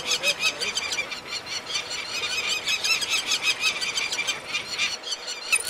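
Peregrine falcons calling in a rapid, continuous series of short, harsh, squealing notes, several a second, breaking off just before the end.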